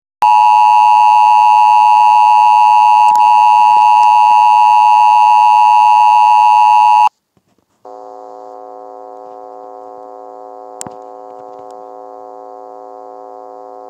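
Emergency Alert System–style alarm: a loud, steady electronic attention tone holds for about seven seconds and cuts off abruptly. After a short silence, a second, quieter and lower steady tone follows.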